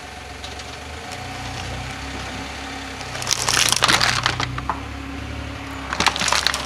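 Cardboard chocolate and pizza boxes crushed under a slowly rolling car tyre, crackling and crunching in two bouts: a longer, louder one about three seconds in and a shorter one near the end. A car engine idles with a low steady hum beneath.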